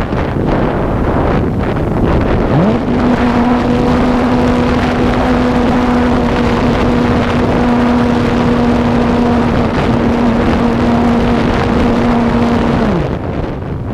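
Strong wind buffeting the microphone. A steady motor hum glides up about two and a half seconds in, holds level, and drops away near the end.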